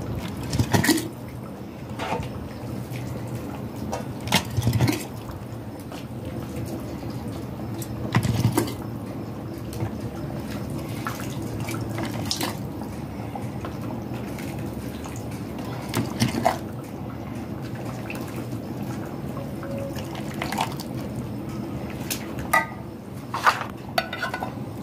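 Thick hot vegetable caviar ladled through a plastic funnel into a glass jar: liquid pouring and splashing into the jar, with short knocks of the ladle against the pot, funnel and jar every few seconds.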